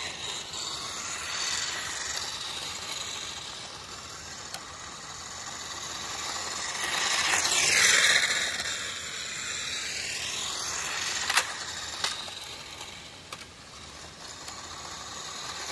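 Upgraded toy-grade RC car's electric sprint motor and drivetrain gears whining as it is driven, the pitch falling and rising with the throttle. It is loudest about eight seconds in, with a couple of sharp clicks a few seconds later.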